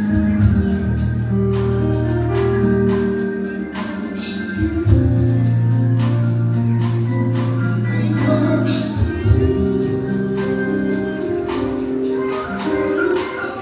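Gospel music with organ chords, a steady percussive beat and some singing.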